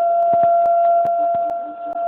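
Civil defence siren holding one steady tone, with a scatter of sharp crackling clicks over it and a brief dip in loudness near the end.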